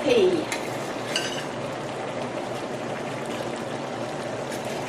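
Cherry pie filling simmering in a pot on low heat: a steady bubbling hiss, with a faint clink about a second in.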